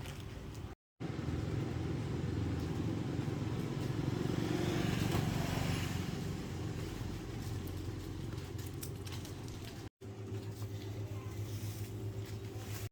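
Motor vehicle engine running, growing louder and then fading in the middle. After a short break it gives way to a steadier, even engine hum.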